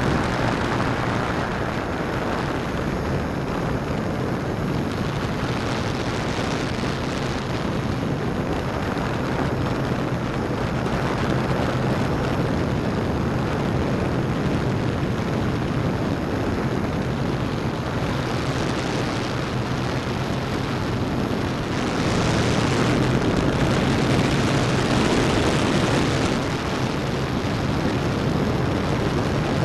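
The motors and propellers of an S650 hexacopter running in flight, heard from a keychain camera mounted on the aircraft itself. They give a steady hum with a constant low tone, and grow louder for about four seconds roughly three-quarters of the way through.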